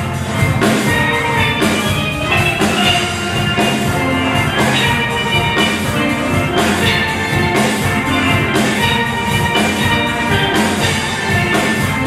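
Steel band playing a tune live: many steel pans ringing out the melody and chords together over a steady drum beat.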